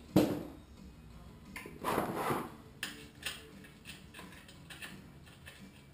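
Metal-on-metal clicks and clanks of a wrench working the oil drain plug on a Honda ATC 250SX-type engine: a sharp knock near the start, a scraping rattle about two seconds in, then scattered clicks.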